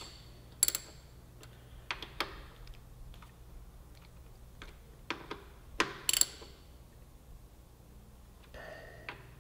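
Scattered metallic clicks and taps of a hand ratchet and wrench on the front brake caliper mounting bolts as they are run down finger tight. The sharpest clicks come about a second in and around six seconds in, with quiet between them.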